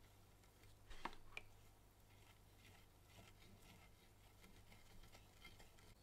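Faint light scratching and dabbing as a cloth-wrapped brush-plating pen is rubbed over wet metal. There are two sharper clicks about a second in, over a steady low hum.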